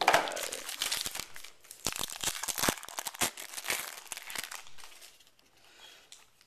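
Plastic shrink wrap on a box of trading cards being torn off and crumpled: dense crinkling and crackling that dies down after about four and a half seconds.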